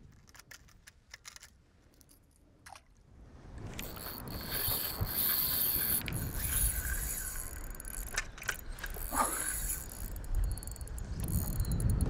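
Daiwa 24 Certate spinning reel being cranked on a retrieve, a steady mechanical gear whirr, after a few light clicks as the lure and line are handled. Wind rumbles on the microphone near the end.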